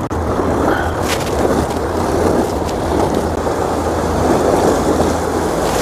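Small sea waves washing steadily against shore rocks, with a low wind rumble on the microphone and a brief sharper splash about a second in.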